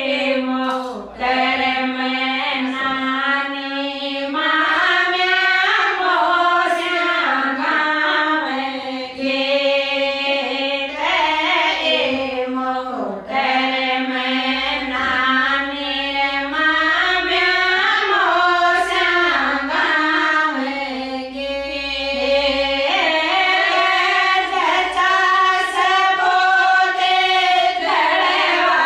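Female voices singing a Rajasthani folk song in one continuous melody, with held notes that bend up and down.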